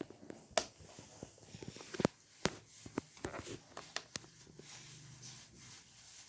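Small screwdriver removing a battery screw inside an opened MacBook Air: scattered sharp clicks and light taps of the metal tip on the screw and case, at irregular intervals.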